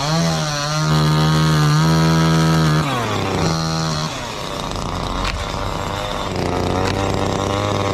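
Two-stroke chainsaw cutting jackfruit tree wood at high revs, its pitch dipping now and then. Roughly three seconds in the throttle is released and the pitch falls; after a brief blip back up, the saw settles to a steady, lower idle.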